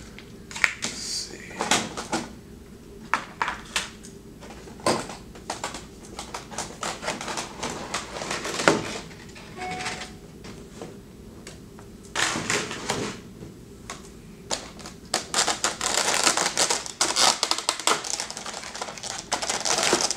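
Cardboard and clear plastic packaging being handled: a string of sharp clicks and taps as a sleeve and a rigid plastic display tray are slid out of a box, turning to denser crinkling and rustling of plastic about three quarters of the way in.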